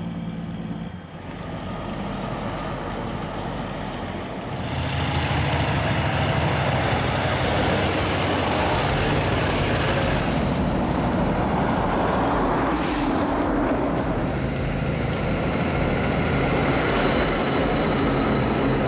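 A heavy truck's engine running, getting louder about four and a half seconds in and then holding steady.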